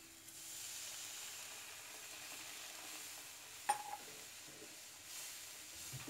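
Faint sizzling of butter bubbling in a nonstick frying pan, stirred with a wooden spatula, with one sharp click nearly four seconds in.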